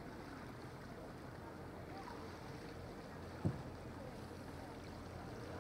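Steady low hum of a motor boat on the river, with a single short thump a little past the middle.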